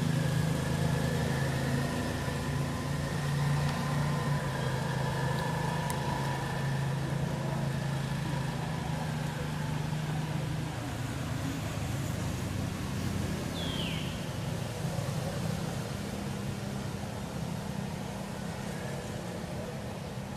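A motor engine running steadily at idle, a low hum with a clear pitch that eases off about halfway through. A single short chirp, falling in pitch, comes about two-thirds of the way in.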